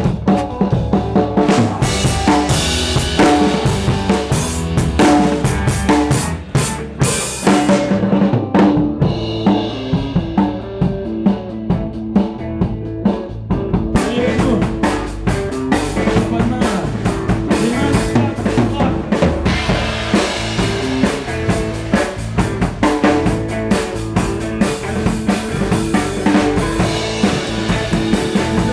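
Live rock band playing, with the drum kit close and loud: steady kick, snare and rimshot hits over bass and guitar. About eight seconds in, the bright top end drops away for roughly six seconds, then the full band comes back in around the middle.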